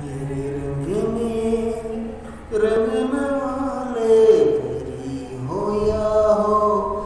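A male voice singing unaccompanied, holding long notes and sliding up in pitch into each new phrase.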